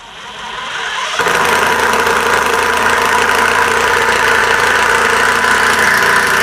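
Ryobi Kyocera BID10XR brushless impact driver, in low mode, driving a long screw into hardwood. It builds up over the first second, then hammers loudly and steadily for about five seconds as the screw goes in.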